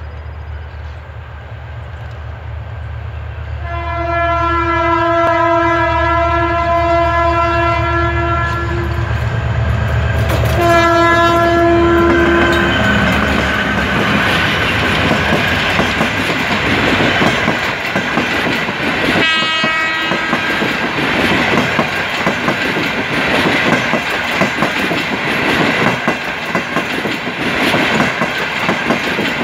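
An EMD GT-22CW diesel locomotive approaches with its engine rumbling and sounds its horn for the level crossing: one long blast, then a shorter one. The passenger coaches then roll past close by, loud wheel and rail noise with a rhythmic clickety-clack over the rail joints. A brief further tone comes about 19 seconds in.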